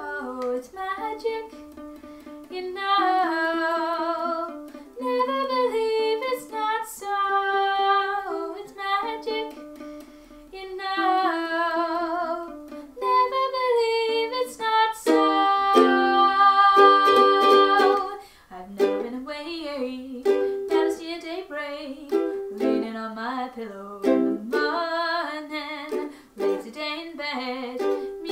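A woman singing a song to her own ukulele accompaniment, holding some notes long with vibrato.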